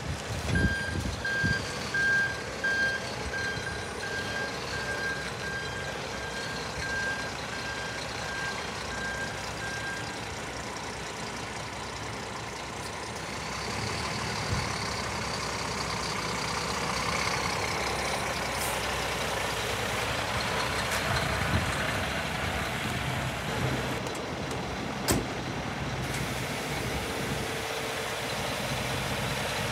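Scania R400 truck's diesel engine running as it manoeuvres, with a back-up alarm beeping at an even pace for about the first ten seconds. The engine grows louder about halfway through as the truck comes closer, and a single short, sharp sound comes near the end.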